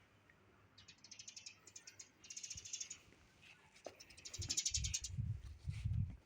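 A ratchet clicks in two quick runs of rapid, even clicks, followed near the end by several low thuds.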